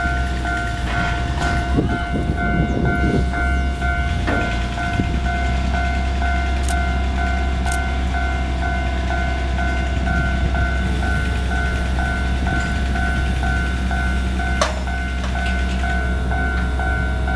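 Taiwan Railways freight train approaching slowly, its locomotive giving a steady low rumble. A high tone pulses rapidly and steadily throughout.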